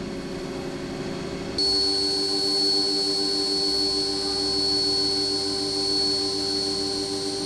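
CNC milling machine running with a steady hum, then about a second and a half in a high steady whine with lower steady tones sets in abruptly and the sound gets louder, as the end mill starts the engraving pass in the aluminium coaster.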